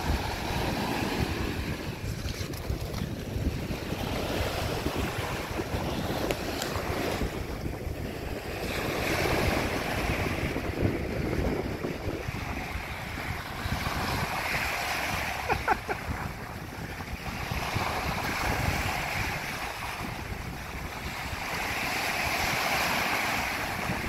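Rough surf breaking and washing up the shore, surging every few seconds, with wind buffeting the microphone.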